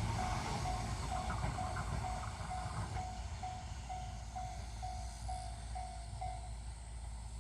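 Japanese level-crossing warning bell ringing in even electronic clangs about twice a second, stopping about six and a half seconds in, over the low rumble of the Shinano Railway 115-series train fading as it moves away from the crossing.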